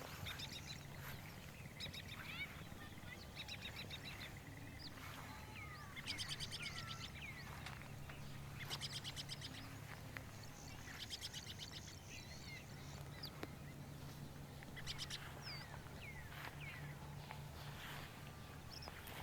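Small birds chirping and calling, with several rapid high trills about six, nine and eleven seconds in, over a steady low hum.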